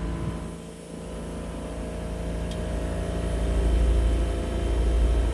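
Heat pump outdoor unit running: compressor and fan hum with several steady tones over a low rumble. The rumble grows louder about halfway through as the unit ramps up to its higher operating mode. The owner wonders whether the compressor is a little noisier than it should be.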